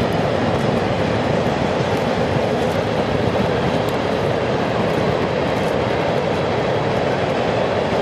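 Kansas City Southern freight cars rolling across a steel girder railroad bridge: a steady, loud rumble of wheels on rail with no breaks, and a few faint high ticks.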